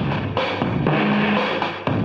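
Background rock music with a pounding drum kit: bass drum, snare and cymbals.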